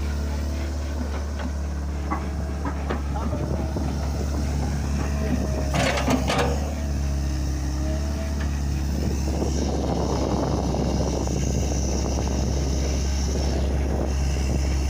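Heavy diesel engine of an excavator running steadily, with a brief hiss about six seconds in and a rougher, busier stretch of noise from about nine to thirteen seconds.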